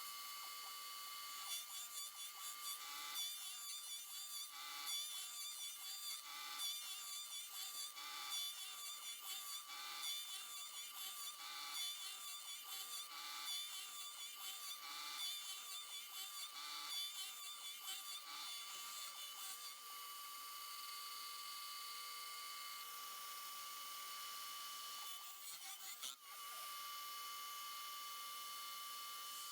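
Shapeoko 3 CNC router spindle whining steadily while its cutter mills a billet aluminum part, the cutting noise swelling and fading about every second and a half to two seconds as the tool makes its passes. About two-thirds through the cutting stops and only the steady spindle whine runs on, with a brief dip near the end.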